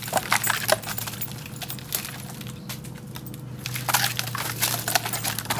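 A Doberman's claws scratching and scrabbling on tree bark as she climbs the trunk: a quick run of sharp scrapes and clicks in the first second, a quieter stretch, then another flurry from about four seconds in.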